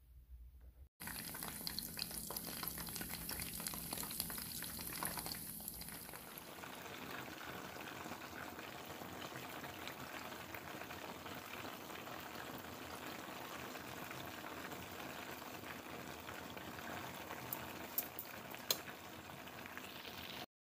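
Sesame-coated glutinous rice balls deep-frying in vegetable oil: a steady sizzle that starts about a second in, with two sharp clicks near the end.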